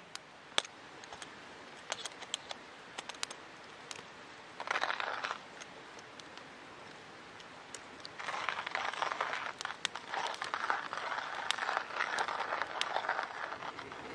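Hand-cranked metal coffee grinder grinding beans: a continuous gritty crunching from about eight seconds in to near the end. Before it, scattered sharp clicks and a brief rattle about five seconds in.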